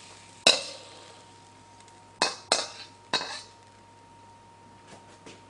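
Metal ladle clinking as stir-fry is scraped out of a wok onto a plate: one sharp clink about half a second in, the loudest, then three more quick clinks a couple of seconds later.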